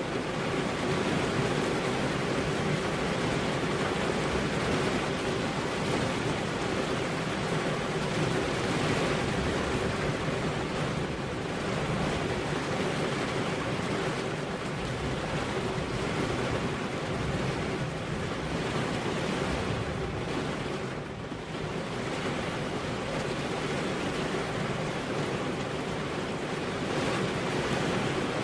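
Steady heavy rain with wind, an even rushing hiss that eases briefly about two-thirds of the way through.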